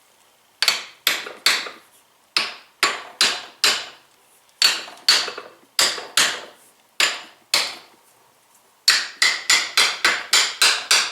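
Hammer blows on metal: groups of two to four strikes with short pauses, then a rapid run of about four to five blows a second near the end. The hammer is striking the coilover shock's old fitted part to drive the seal head back into place past the snap ring groove.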